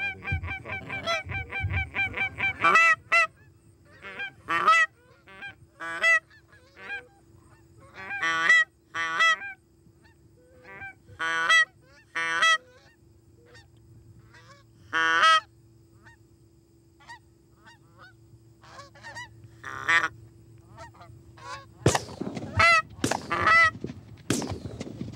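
Canada goose calls blown hard by hunters at a passing flock: a rapid string of clucks in the first few seconds, then scattered single honks. Near the end come several sharp shotgun blasts mixed with honking.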